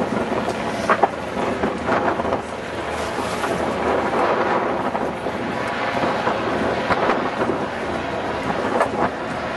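Wind blowing across the microphone on a boat, a steady rushing noise with a few louder gusts, over the general noise of the boat on the water.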